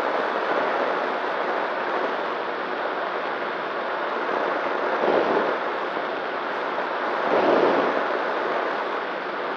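Steady rushing wind noise on the onboard camera of a Nano Talon FPV plane in flight, swelling louder twice, about five seconds in and again near the end.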